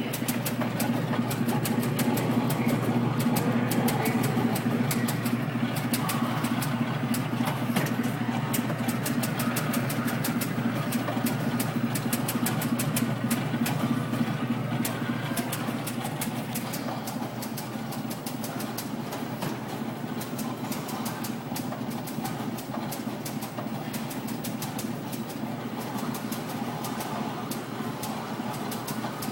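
Coin-operated Astral Typewriter fortune-telling machine at work: a steady motor hum under a fast, continuous clicking of its typing mechanism as it prints a fortune.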